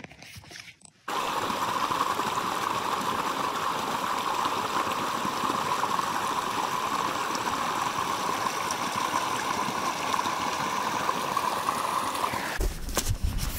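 Steady rushing of running water, a stream, starting suddenly about a second in. A low rumble comes in near the end.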